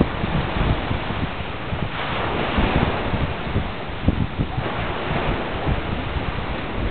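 Sea surf washing with wind buffeting the microphone; the wash of the waves swells louder from about two seconds in until past the middle.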